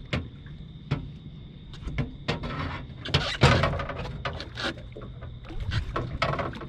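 Irregular knocks, clicks and scrapes of a just-landed flathead catfish and tackle being handled, the loudest clatter about three and a half seconds in.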